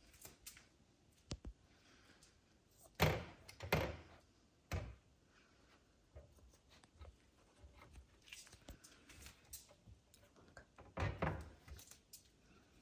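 A few dull thumps and knocks, two close together about three seconds in, another a second later and a cluster near the end, with faint clicks and rustling between them.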